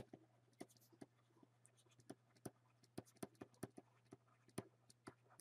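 Faint, irregular tapping and clicking of a stylus on a tablet screen during handwriting, several taps a second.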